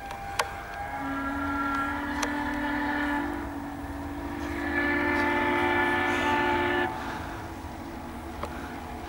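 Steam locomotive whistle sounding one long blast of about six seconds that steps up in pitch partway through and cuts off sharply, over the low rumble of the approaching train.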